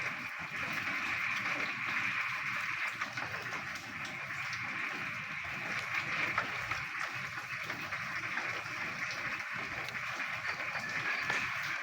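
A dense chorus of many frogs calling at once in the rain, merging into one steady wash of sound.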